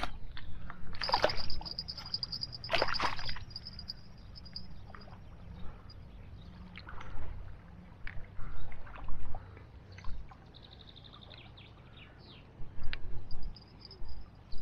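Water splashing and sloshing in two short bursts, about one and three seconds in, followed by scattered smaller clicks and rustles.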